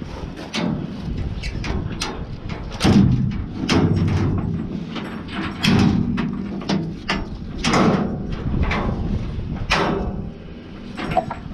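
Ratchet tie-down straps being undone and handled on a steel-mesh load on a trailer: irregular clicks, clanks and rattles of buckles and metal, with a few louder knocks.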